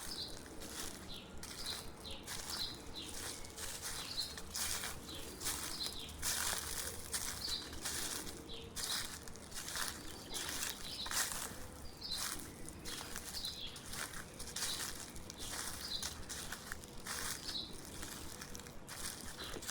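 Footsteps crunching through dry fallen leaves on a forest path, a step about every two-thirds of a second, with a bird repeating a short high chirp over and over.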